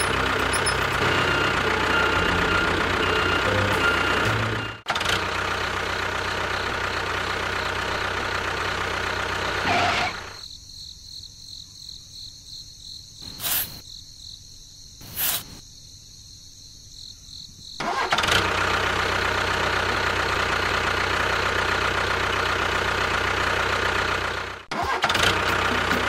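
Small motor of a miniature DIY model construction vehicle running steadily, in several cut-together stretches. The middle stretch is much quieter, with two sharp clicks.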